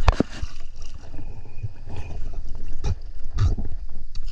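Water sloshing and gurgling close to the microphone around a diver at the surface, with a sharp knock right at the start and a few smaller knocks later.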